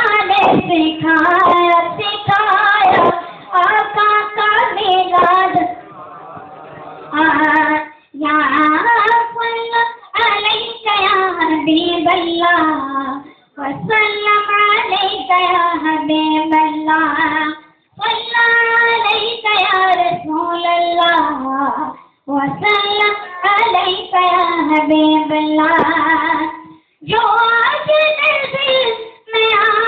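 A boy's solo voice reciting an Urdu naat into a microphone, sung unaccompanied in melismatic phrases with long held notes and brief pauses between lines.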